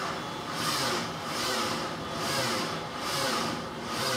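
2002 Mini Cooper's 1.6-litre engine cranking slowly on its starter, labouring and swelling about once a second. The starter is drawing huge current surges of 300 to 400 amps, which points to a mechanical drag rather than a battery, cable or starter fault; the drag is later traced to a seized alternator on the serpentine belt.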